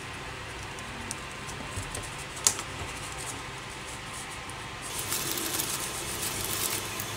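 Small clicks and taps of wooden popsicle sticks being handled and fitted in the fingers, with one sharp click about two and a half seconds in. From about five seconds a paper tissue rustles as it is handled, over a steady hiss.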